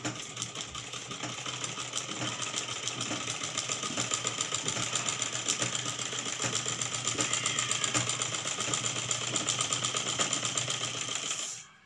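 Black household sewing machine stitching cloth at a steady, rapid pace, its needle mechanism clicking many times a second, then stopping abruptly near the end.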